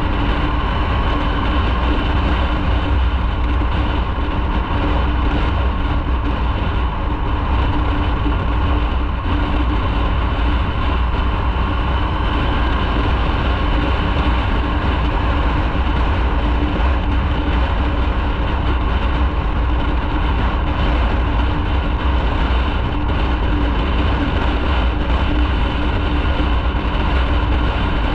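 Motorcycle riding at a steady pace: the engine runs evenly with a constant hum under a loud low rumble, with no change in speed or load.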